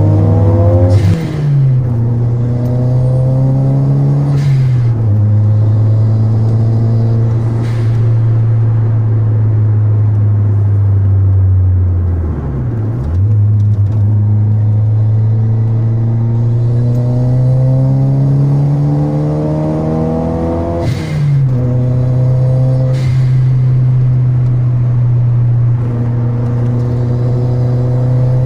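Toyota Celica GT-Four's turbocharged four-cylinder engine heard from inside the cabin while driving, its note climbing under acceleration and dropping back at gear changes about a second in, near 5 s, around 12 s and about 21 s in. Short hisses at several points, some at the shifts, are the turbo's blow-off valve venting.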